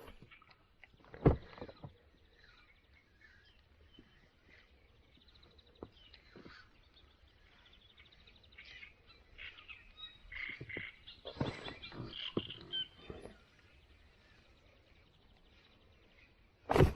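Quiet outdoor water scene with faint bird chirps, mostly in the middle stretch. There is a sharp knock about a second in and a louder knock near the end.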